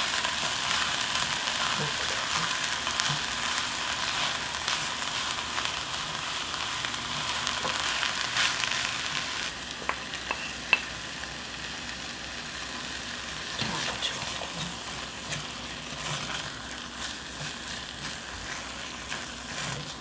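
Onions, leek and doenjang–gochujang paste sizzling as they stir-fry in an earthenware ttukbaegi, with a wooden spatula scraping and stirring through them. The sizzle turns quieter about halfway through, with a few sharp clicks just after.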